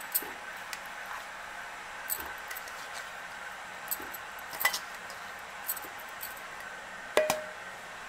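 Chopped tomato pieces dropped by hand into a stainless-steel mixer-grinder jar: scattered soft taps and metal clinks, over a faint steady hum. The loudest is a short ringing clink about seven seconds in.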